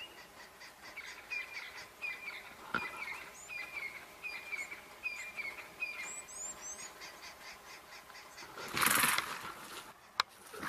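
A bird repeating a short down-slurred chirp, roughly twice a second, joined briefly by a few higher, thinner descending notes a little over halfway through. Near the end comes a loud rustling burst of about half a second, then a single sharp click.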